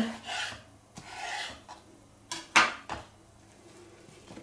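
Kitchen knife cutting zucchini on a wooden cutting board: a sharp knock of the blade on the board, two longer cutting strokes, then a few sharp knocks about two and a half seconds in.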